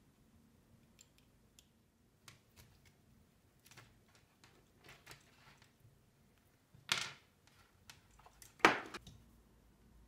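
Small handling noises of a wire and hand tools being worked at a workbench, with two louder sharp snaps, about seven and nine seconds in, as a wire stripper is used on the end of an alligator-clip lead.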